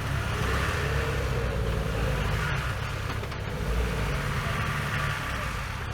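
Off-road vehicle engine running steadily under a continuous rushing noise.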